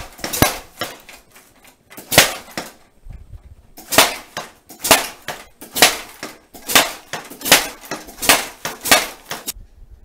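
Rapid sharp smacks and clacks as a heavy bag on a Universal Punch Back rig is punched and its padded punch arms swing out and back, about two or three hits a second. There is a short pause about three seconds in, and the hits stop shortly before the end.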